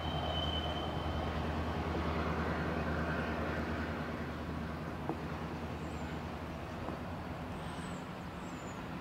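Low, steady rumble of a slow-moving CN diesel freight locomotive mixed with cars driving over the railway grade crossing in front of it, fading a little after about three seconds. A light knock about five seconds in.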